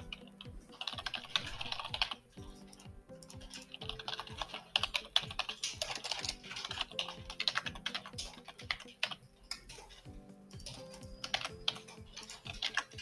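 Typing on a computer keyboard in several bursts of rapid key clicks, over background music with steady held notes.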